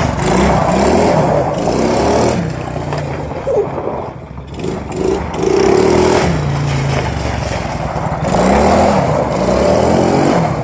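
ATV engine revving up and down as it is ridden, its pitch repeatedly rising and falling. It eases off and goes quieter about four seconds in.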